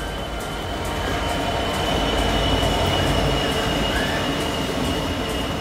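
Two coupled Class 66 diesel freight locomotives passing at close range. Their two-stroke EMD V12 engines give a steady low rumble that grows louder toward the middle and eases a little after. A steady high-pitched squeal runs through it.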